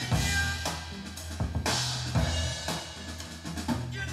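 A rock track with a drum kit (kick and snare) over a sustained bass line, played back through Bowers & Wilkins 805 D4 stand-mount speakers.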